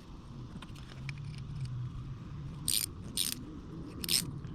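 A thread-cleaning die being turned on a rusty bolt: three sharp metallic clicks in the second half, over a faint low hum.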